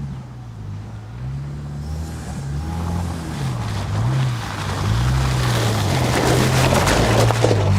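Pickup truck engine running under throttle, its pitch rising and falling repeatedly, with a rushing noise that builds over the last few seconds and is loudest near the end.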